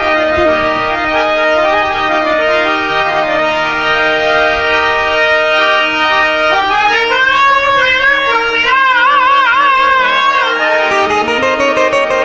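Harmonium playing sustained reedy chords and a stepping melody. About halfway through, a wavering melodic line with strong vibrato rises above the chords for a few seconds, then drops away.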